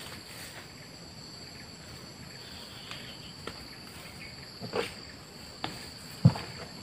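Steady high-pitched insect chorus, with a few rustles and knocks near the end as a plastic bucket is handled, the loudest a short thump about six seconds in.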